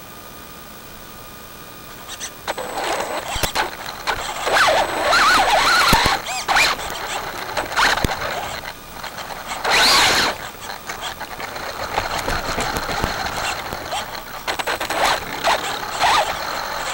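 Traxxas 4x4 Slash VXL RC truck's brushless motor whining up and down in pitch as the truck drives hard over dirt and leaf litter, with a loud rush about ten seconds in. Before it sets off, only a faint steady hiss.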